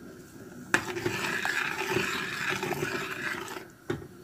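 Metal ladle stirring soup in a stainless steel pot, scraping and swishing through the liquid for about three seconds. It starts with a knock about a second in, and a second knock comes near the end.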